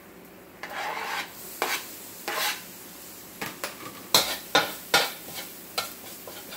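Minced garlic and ginger dropping into hot oil in a wok with a short sizzle, then a spatula scraping and clacking against the wok in a run of quick, sharp strokes as they are stir-fried.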